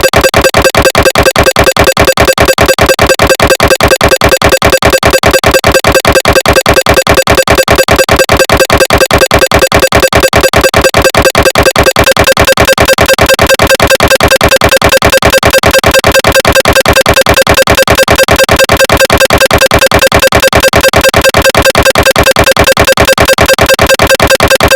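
Recreated MRI scanner noise imitating a GE 1.5 T SIGNA Victor running an axial diffusion-weighted (DWI) sequence: a loud, rapid, steady pulsing buzz of gradient-coil knocking. About halfway through the pattern shifts to a fuller, harsher tone, and it cuts off suddenly at the end.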